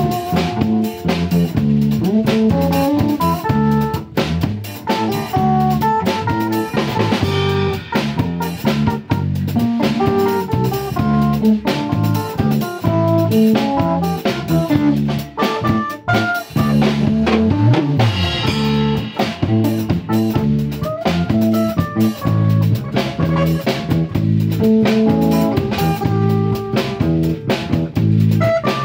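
Small band playing an instrumental number: electric guitar carrying the melody over bass guitar, strummed acoustic guitar and a drum kit keeping a steady beat.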